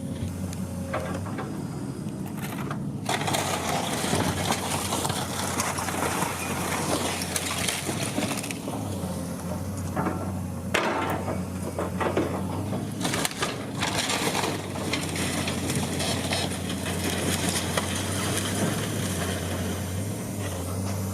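Building demolition: a heavy machine's engine running steadily under continuous crunching and breaking of debris, with sharp knocks and cracks several times.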